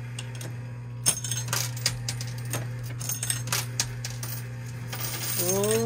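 Quarters in a coin pusher machine clinking and sliding against each other as the pusher shelf moves, in scattered clicks over a steady low hum.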